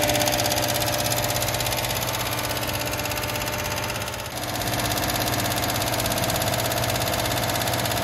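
2016 Chevy Tahoe's 5.3-liter V8 running above idle with a nasty, fast valve-train tick that keeps time with engine speed, with a brief dip in level about halfway. The mechanic takes it for a valve-train fault, most likely a flat cam lobe or a faulty rocker arm.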